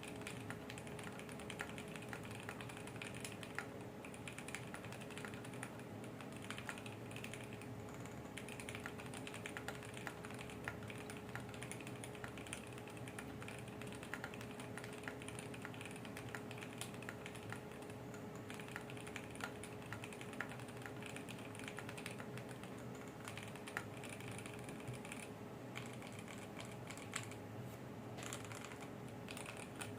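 Continuous fast typing on a custom mechanical keyboard: a KBDfans D84 gasket-mount aluminium case with factory-lubed Momoka Frog switches and PBT keycaps, keystrokes clacking in quick unbroken runs. A faint steady hum sits underneath.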